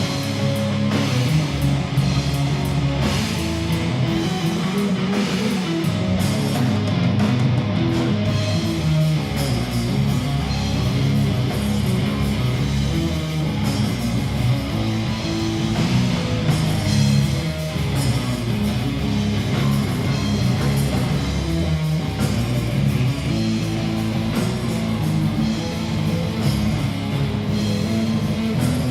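Live heavy rock band playing an instrumental passage: electric guitar, bass and drum kit at a steady loud level.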